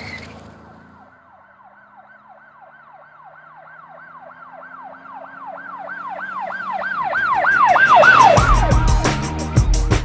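A siren wailing in quick up-and-down sweeps, about three a second, growing steadily louder. Music with drums comes in about eight seconds in.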